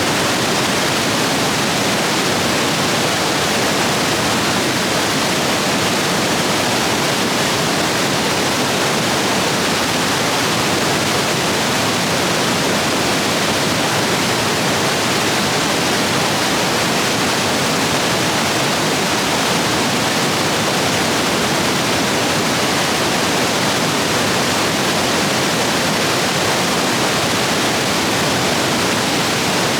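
Rapids of a rain-swollen stream rushing over rocks: a loud, steady roar of water with no let-up.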